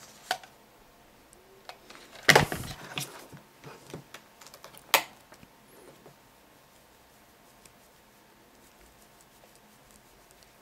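Plastic computer mice and a coiled mouse cable being handled on a desk: a burst of clattering knocks and rustling about two seconds in, scattered clicks, and one sharp click about five seconds in.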